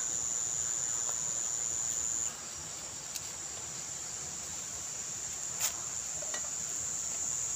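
Steady high-pitched insect chorus that drops in level about two seconds in, with a few sharp knocks of a knife on a wooden cutting board as turmeric leaves are sliced, the loudest a little past the middle.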